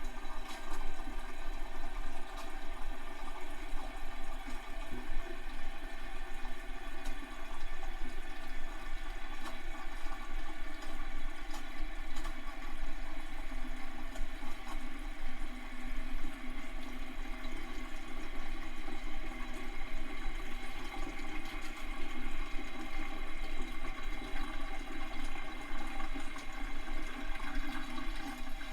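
Toilet cistern refilling after a flush: a steady rush and hiss of water running on without a break, cutting off suddenly at the end.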